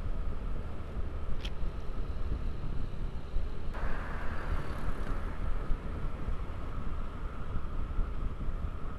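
Motorcycle engine running while riding along, with heavy wind buffeting the microphone; the engine note grows brighter about four seconds in.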